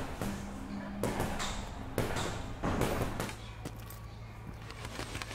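Boxing-glove punches landing on hanging heavy bags: three heavy thuds about a second apart, echoing in a large open hall. They give way to faint, quick light ticks.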